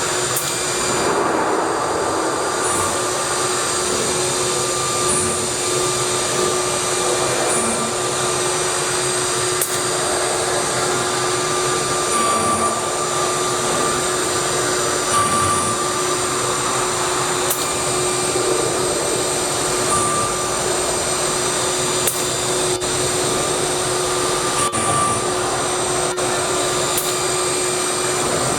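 1325 CNC wood router running steadily while machining, its spindle giving a constant whine of several tones over a rushing noise.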